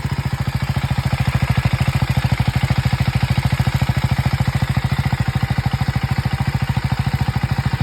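KTM Duke 390 Gen 3's single-cylinder engine idling steadily, with a fast, even pulsing beat.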